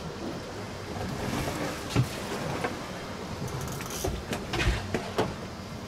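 Steady wind and water noise on a fishing boat at sea, with a few sharp knocks about two, four and five seconds in.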